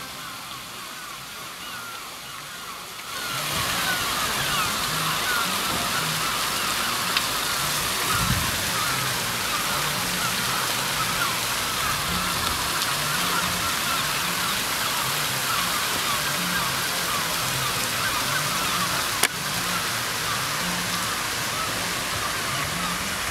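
Ross Fountain's water splashing steadily into its stone basin, with people's voices faint underneath. It comes up louder about three seconds in, and a sharp click sounds near the end.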